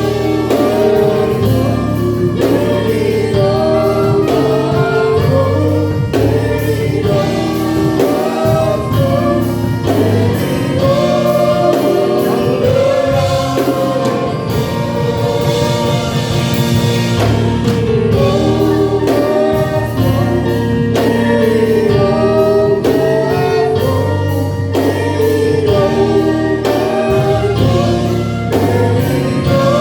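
Gospel choir singing with band accompaniment: sustained voices over a steady bass and a regular beat.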